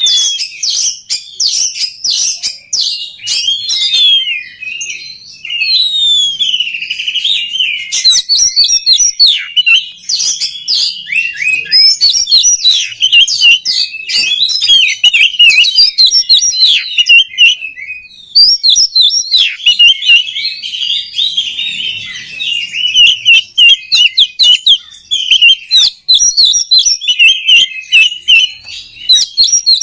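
Oriental magpie-robin (kacer) singing a fast, nearly continuous stream of varied whistles, trills and sharp clicking notes.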